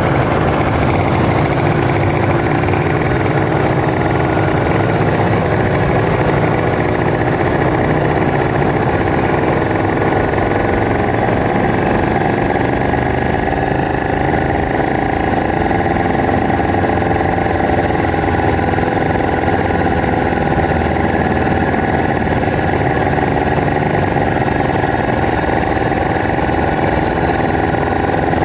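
Kawasaki Ninja RR 150's two-stroke single-cylinder engine running at low revs as the bike rolls slowly, its pitch rising and falling a little. Engines of other motorcycles riding close ahead mix in.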